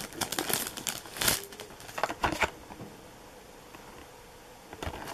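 Clear plastic packaging crinkling and crackling as it is handled and pulled off a box. A quick run of crackles lasts about two and a half seconds and stops, and another crackle comes near the end.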